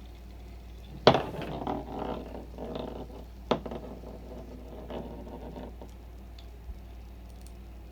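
Clicks and clatter of small hard parts being handled, with a sharp click about a second in and another at about three and a half seconds, over a steady low hum.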